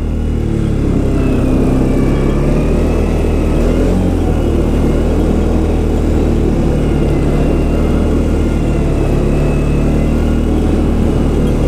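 ATV engine running steadily at near idle, its pitch rising and falling slightly in the first few seconds, then holding even.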